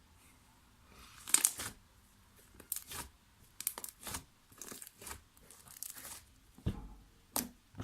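Hands stretching, pressing and pulling apart slime, making a string of irregular short crackling and tearing sounds.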